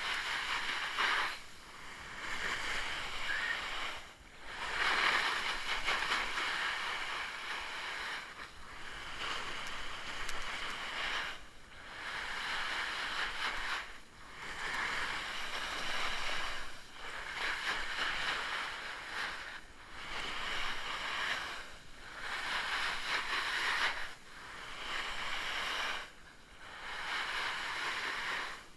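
A snowboard sliding and scraping over snow on a descent, the hiss swelling and dropping away every two to three seconds.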